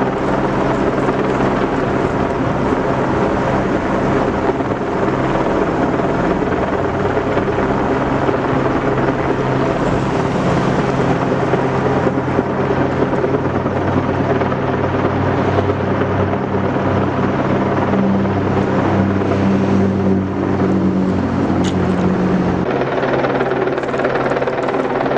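Steady, loud engine drone with several low pitches held level together; one of them drops out about 23 seconds in.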